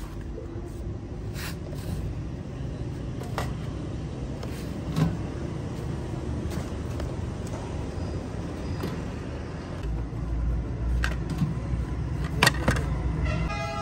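Steady low rumble of street traffic, with scattered knocks and clinks of steel pots and plates being handled; the loudest are two sharp clatters near the end as a stack of plates is picked up. A vehicle horn starts sounding just at the end.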